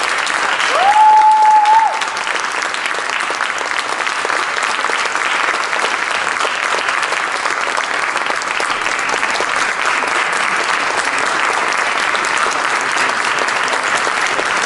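Theatre audience applauding steadily. About a second in, one high, held cheer rises above the clapping for about a second.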